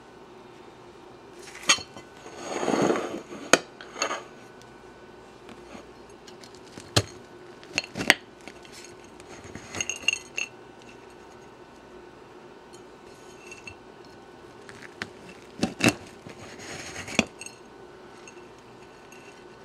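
A metal cake server clinking and scraping on a glass plate, and the crisp, flaky pastry layers of a Napoleon cake crunching as they are cut and pulled apart. There are a few sharp clinks, and two longer stretches of crunching about three seconds in and again after about sixteen seconds.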